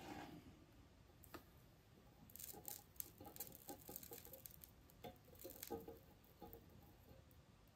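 Faint crackling and ticking of flux sputtering on a wire-to-resistor joint under a soldering iron, a loose run of small pops from about two seconds in until about six seconds.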